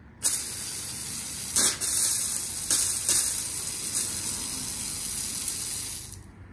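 Water under full garden-hose pressure jetting out of the open end of a soldered copper pipe assembly, a loud steady hiss of spray that swells briefly twice and cuts off about six seconds in.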